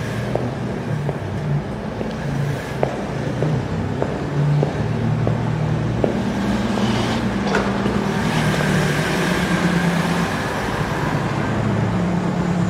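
Footsteps on a hard garage floor, about one and a half steps a second, over a steady low vehicle-like rumble. The steps stop about six seconds in, and the rumble swells and stays louder.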